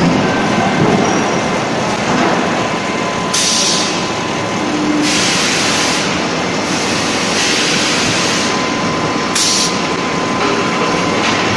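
Automated hot-forging press line running: a steady, loud machine din with a faint steady whine, broken four times by short bursts of compressed-air hiss, the longest nearly two seconds long.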